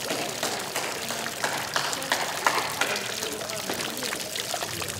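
Water running and splashing steadily from a stone street fountain, with voices talking briefly around the middle.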